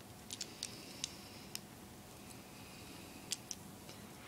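Faint, sharp clicks of small plastic LEGO pieces being pressed together by hand, a handful of uneven ticks.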